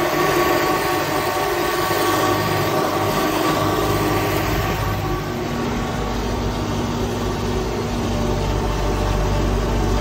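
MTZ-82 Belarus tractor's four-cylinder diesel engine running steadily under way, heard from inside the cab.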